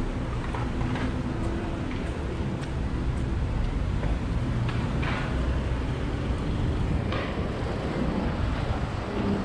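City street ambience: a steady low rumble of passing traffic, with a couple of brief sharper sounds around the middle.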